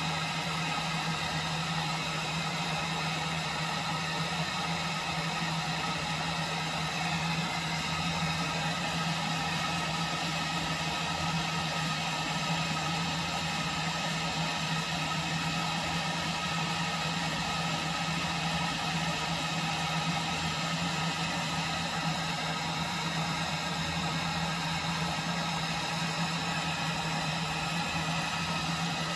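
Propane camping-stove burner on a 1 lb propane cylinder burning steadily under a pot of 500 ml of water that is close to the boil. A continuous, even rushing noise with a low hum beneath it.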